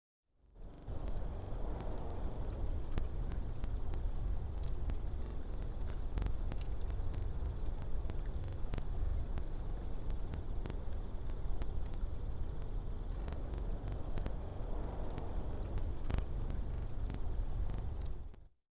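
Crickets chirping at night: a steady high trill with a regular chirp about twice a second, over a low rumble.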